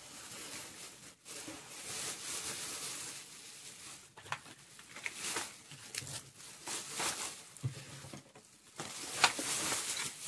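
Thin plastic shopping bag rustling and crinkling in irregular bursts as it is handled and rummaged through, loudest a little before the end.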